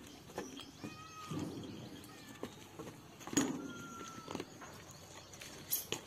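Short high-pitched animal calls, one held for about a second near the middle, with a few sharp knocks in between.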